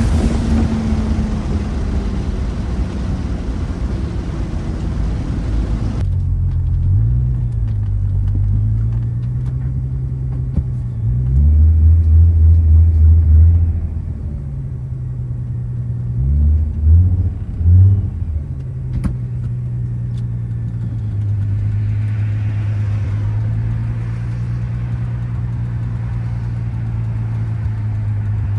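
Turbocharged VR6 engine and exhaust. A wide rushing noise stops abruptly about six seconds in, leaving the engine's low steady drone. A louder burst of revving follows a few seconds later, then a few quick throttle blips, before it settles back to low steady running.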